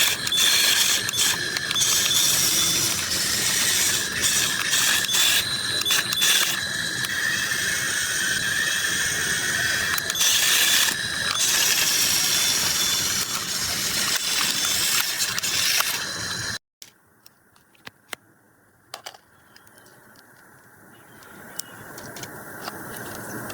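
Radio-controlled excavator's motors and gears running with a steady whine and frequent clicking. The sound cuts off abruptly about two-thirds of the way through. A few faint clicks and a faint hiss follow.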